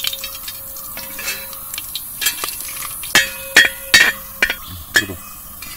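Whole spices (cinnamon, cloves and cardamom) sizzling in hot coconut oil in a wide metal uruli, being roasted in the oil. A perforated steel skimmer stirs them and scrapes and clinks against the pan bottom about six times in the second half.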